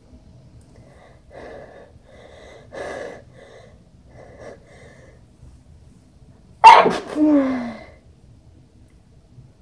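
A person sneezing once, loudly, about seven seconds in, after several short catching breaths building up to it; the sneeze trails off in a falling voice.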